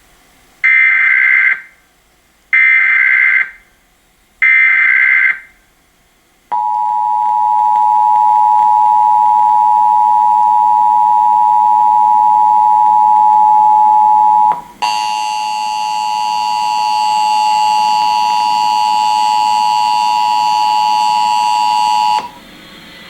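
Emergency Alert System test: three short screeching data bursts of the SAME header, then the steady two-tone EAS attention signal sounding for about fifteen seconds, with a brief dropout about halfway and a brighter, harsher edge in its second half.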